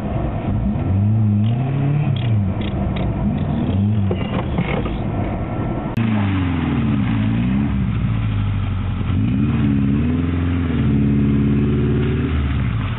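Off-road 4x4's engine revving up and down several times under load on a rough trail. It holds higher revs for a couple of seconds near the end, then drops back.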